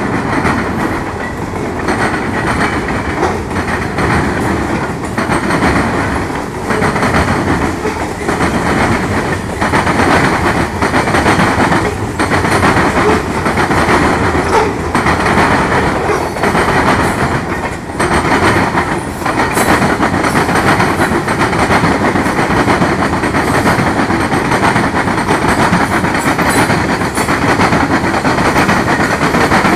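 Norfolk Southern mixed freight train's cars rolling past: a loud, steady rumble of steel wheels on rail, broken by a run of clacks as the wheelsets strike the rail joints.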